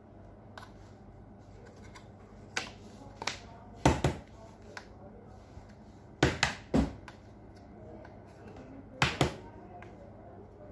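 Short, sharp clicks and knocks, about nine in small clusters, from a circuit board and a soldering iron being handled and set against a workbench.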